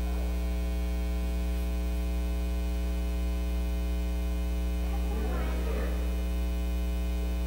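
Steady low electrical mains hum with its evenly spaced overtones on the recording, with a faint voice briefly about five seconds in.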